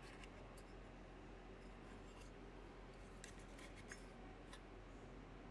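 Near silence with a few faint, short clicks and rubs from hands handling a bare 3D-printer mainboard.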